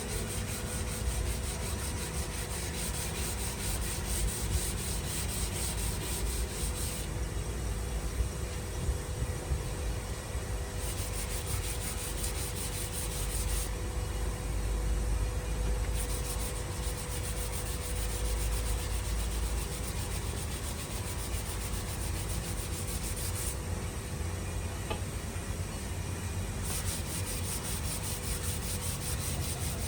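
Wood lathe running with a steady hum while the spinning wood is worked, giving a continuous rubbing hiss of abrasive or tool against wood. The high part of the hiss drops away for a few seconds three times, as the contact eases off.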